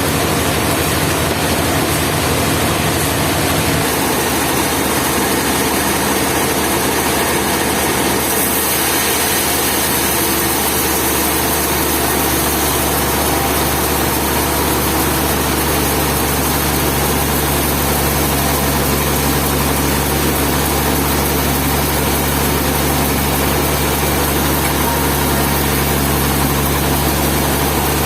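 Sawmill machinery with an engine running steadily and loudly, its low hum shifting about four seconds in and its hiss brightening about eight seconds in.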